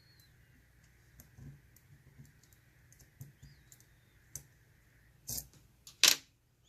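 Small metal clicks and scrapes of a dimple lock pick and tension wrench working the pins of a Mul-T-Lock Interactive dimple padlock. Two sharper, louder clicks come near the end.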